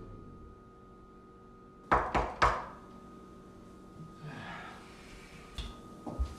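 Three quick knocks on a wooden door about two seconds in, followed later by a few softer thuds, in a small quiet room.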